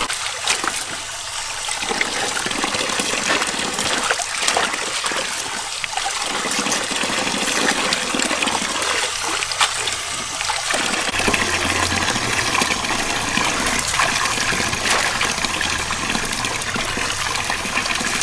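Tap water pouring steadily into a basin of bean sprouts while hands stir and lift the sprouts in the water, with small splashes.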